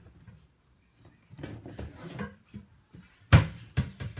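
Kitchen items being handled and set down on a countertop, with one sharp knock a little over three seconds in and a lighter one just after.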